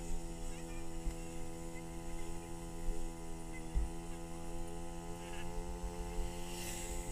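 A steady hum made of several fixed tones that never change pitch, over a low rumble with a few soft thumps.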